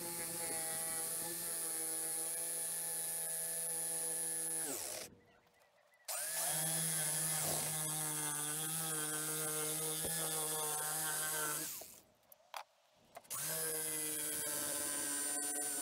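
Corded Skil jigsaw running steadily as it cuts through a 3/4-inch Coosa composite board, a steady motor whine with the blade's sawing. It winds down and stops twice and starts up again each time.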